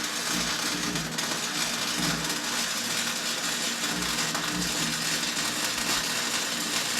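Electric arc welding: the arc crackles and hisses steadily through one continuous weld bead, with a faint low hum underneath.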